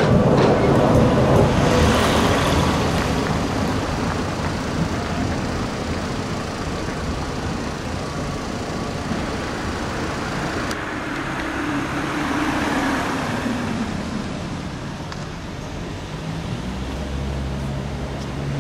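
A red articulated tram passing close by, its running noise loudest at first and fading over the first few seconds. Then steady street traffic noise, with a vehicle swelling and fading about twelve seconds in.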